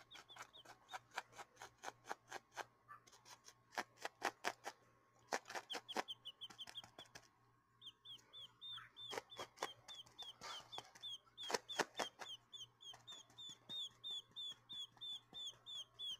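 Baby quail chicks peeping: short falling chirps, sparse at first, then a steady run of about three a second from about halfway through. Scattered sharp clicks and taps are mixed in over the first part.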